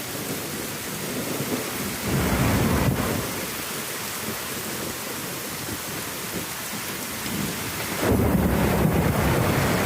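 Heavy rain pouring steadily during a thunderstorm, with a low rumble of thunder about two seconds in and a louder, lasting rumble starting about eight seconds in.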